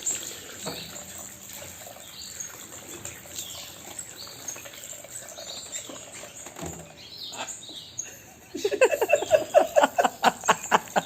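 Small birds chirping in short scattered notes, then, about three-quarters of the way in, a loud rapid run of repeated pulsed sounds, about six or seven a second, lasting a couple of seconds.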